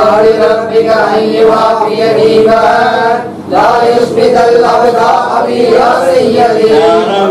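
A group of men chanting a devotional recitation together in unison, with a brief pause for breath about three seconds in.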